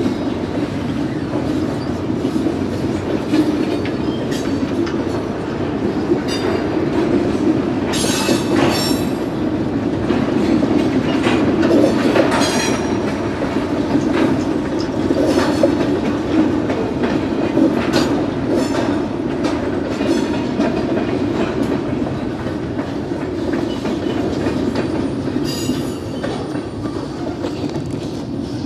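Canadian Pacific manifest freight train rolling past, boxcars and then covered hopper cars. A steady rumble with wheels clacking over rail joints, and brief high squeals and clanks every few seconds. The rumble eases slightly near the end as the last cars go by.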